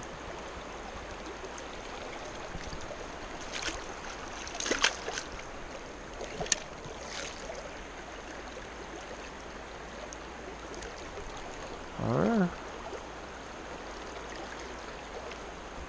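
Creek water flowing in a steady rush, with a few short sharp sounds about four to seven seconds in.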